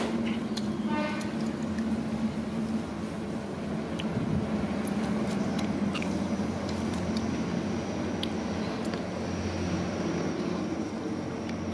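A steady low hum from a running motor, with a few faint clicks over it.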